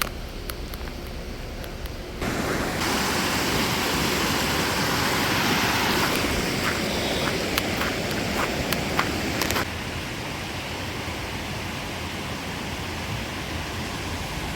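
Steady rushing noise of running water, markedly louder in the middle stretch, from about 2 to 9.5 seconds, with faint scattered clicks over it.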